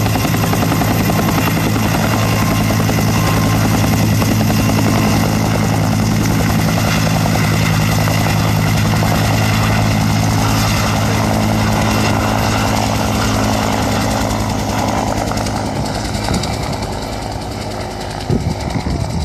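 Bell UH-1 Huey helicopter taking off and flying away, its rotor and engine running with a loud, steady low drone that fades over the last few seconds as it moves off.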